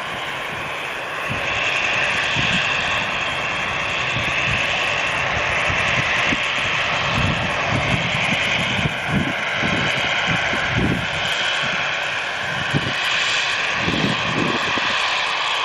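Twin GE CF34 turbofan engines of an Embraer 190 regional jet running with a steady whine and rumble, growing a little louder about a second and a half in as the jet lines up and starts its takeoff roll.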